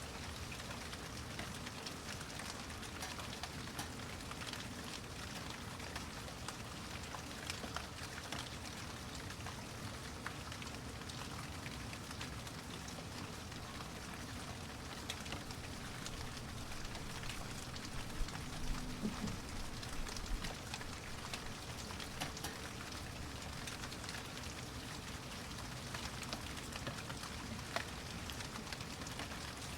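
Steady recorded rain falling, with many single drops clicking on a surface. A few louder low knocks come about two-thirds of the way through.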